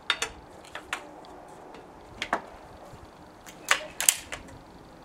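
A string of sharp clicks and knocks from handling a BSA Mark IV Super Meteor break-barrel air rifle and a pellet tin. The loudest cluster comes past the middle, as the rifle's barrel is broken open to cock it for loading.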